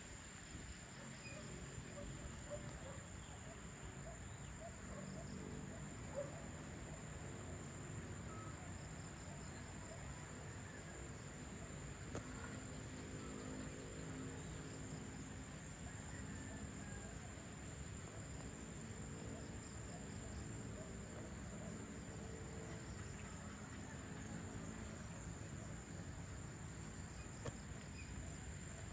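Crickets chirring in a continuous, steady high-pitched trill, with a faint low murmur of distant activity underneath.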